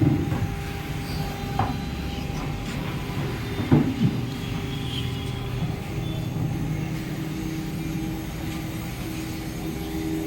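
CNC router running with a steady mechanical hum, broken by two short knocks about one and a half and four seconds in.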